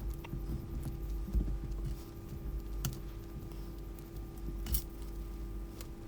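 Scattered small clicks and taps as the plastic parts of a Sanyo cordless telephone are handled during disassembly, the sharpest click about three-quarters of the way through.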